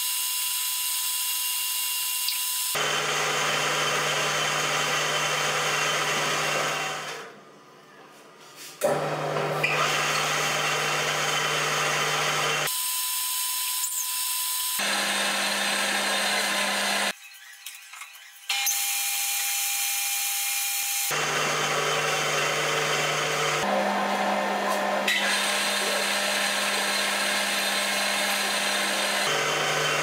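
Metal lathe running: a steady motor hum under a hiss of cutting as a metal rod is turned and then drilled from a tailstock chuck. The hum's pitch jumps at sudden changes every few seconds, and the sound drops away briefly about seven seconds in and again around seventeen seconds.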